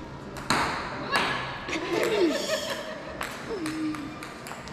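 Ambient clatter: several sharp knocks and clinks, with brief voices in the background.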